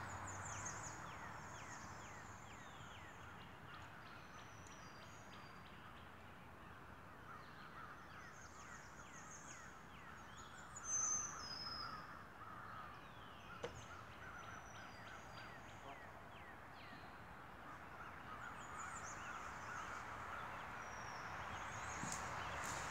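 Faint birdsong in woodland: many small birds chirping and trilling, with one louder call about halfway through. A single sharp click comes shortly after it.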